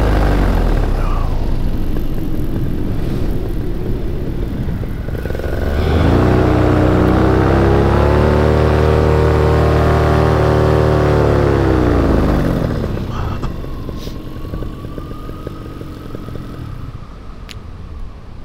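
Paramotor engine and propeller throttling down, then revved up again about six seconds in and held steady, then throttled back near twelve seconds and fading under a rush of wind on the microphone.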